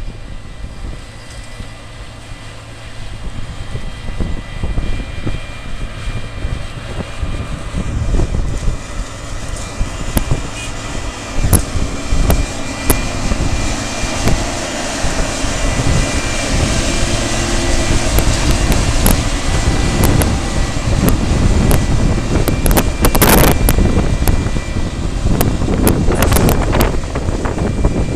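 Claas Lexion 450 combine harvester running, its engine drone and the steady whine of its threshing works growing louder as it comes in close, with sharp knocks and rattles in the later part.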